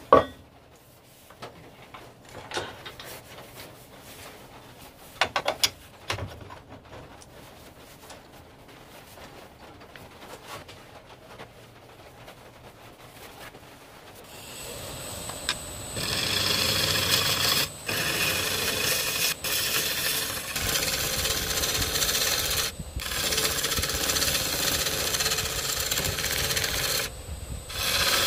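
A few clicks and knocks as the log and tool rest are set up on a wood lathe. About halfway through, the lathe starts and a gouge cuts into the spinning, irregular Kaizuka juniper log: a loud, continuous cutting noise with a faint high whine. The noise breaks off briefly a few times as the tool leaves the wood.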